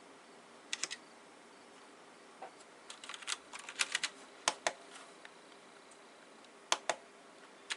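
Keys of a Fiodio mechanical gaming keyboard clicking in short, irregular groups of presses, with pauses between them, as the lighting keys are pressed to set a custom effect.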